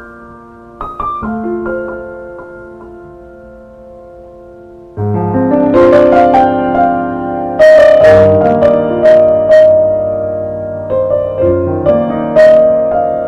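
Background piano music: a few soft, sparse notes, then louder, fuller chords from about five seconds in.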